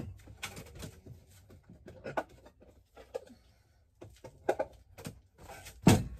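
Household handling noises: scattered light knocks, clicks and rustles of things being moved, with one loud, heavy thump near the end.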